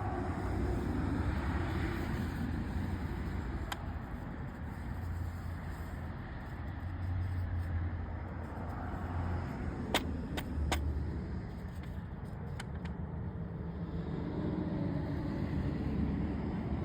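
Steady low vehicle rumble that swells and fades slowly. A few sharp clicks come about ten seconds in.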